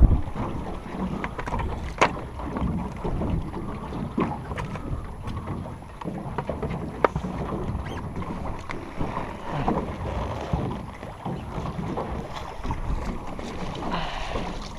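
Wind buffeting the microphone and water slapping against a small boat, with scattered sharp clicks and knocks from gear and fish being handled. Near the end comes a splash as a landing net is dipped and rinsed over the side.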